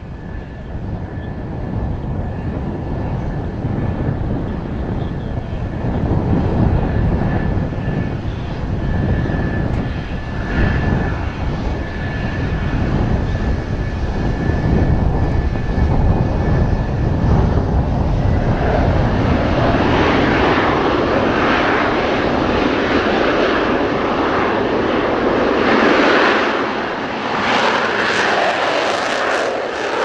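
F-4EJ Kai Phantom II's twin J79 turbojets running as the jet taxis, a steady rumble with a thin high whine. About two-thirds of the way through, the jet noise swells into a louder, rougher roar. Strong wind buffets the microphone.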